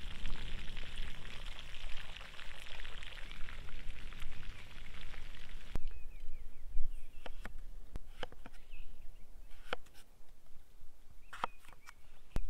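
Meatballs and patties sizzling in a cast-iron pan over a wood fire, a steady hiss that cuts off about six seconds in. Then a knife slicing potatoes on a wooden cutting board, with a few sharp knocks of the blade on the board, and faint bird chirps.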